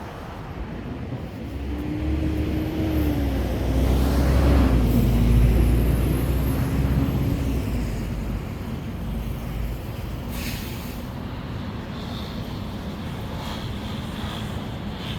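A large road vehicle passing close by: a deep engine rumble that swells over a few seconds, peaks near the middle and fades away, over steady city traffic. A short hiss follows soon after.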